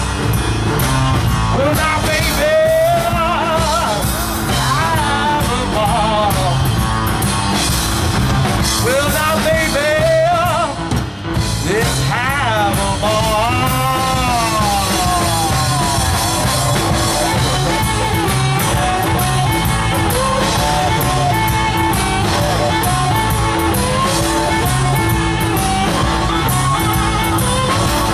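Live blues-rock band playing an instrumental stretch with drum kit, electric guitars and bass. A harmonica, cupped against the vocal microphone, plays a wavering, bending lead line over them.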